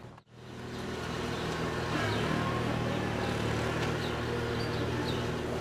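A steady low mechanical hum, growing a little louder about two seconds in, with faint short high chirps over it. The sound drops out for a moment right at the start.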